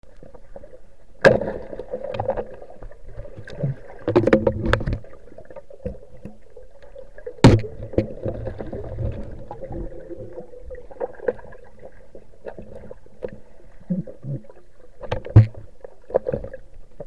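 Muffled underwater sound of water moving around a submerged microphone, with sharp knocks and clunks: a loud one about a second in, a quick run of them around four seconds, another about seven and a half seconds in, and one more near the end.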